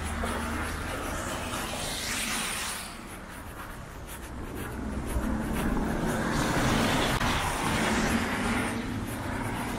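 City road traffic: cars passing, one going by in the first few seconds and a louder one swelling from about five seconds in.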